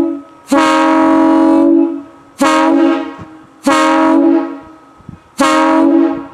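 Locomotive air horn sounding on compressed air in a series of blasts: the end of one, then one long blast and three shorter ones, each starting sharply and holding one steady note.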